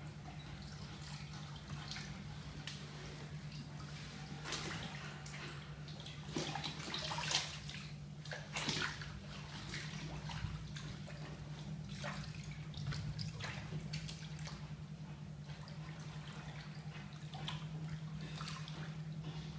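Bathwater sloshing and splashing in a filled bathtub as a clothed body shifts and turns in it, in irregular bursts with the loudest splashes about seven to nine seconds in. A steady low hum runs underneath.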